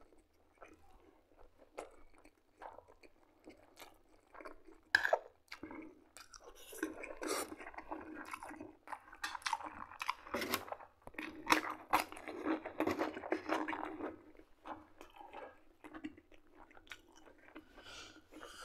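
Close-up chewing of buckwheat and liver cutlets: wet, smacking mouth sounds and clicks, densest in the middle stretch. A single sharp click comes about five seconds in, as the spoon goes into the plate.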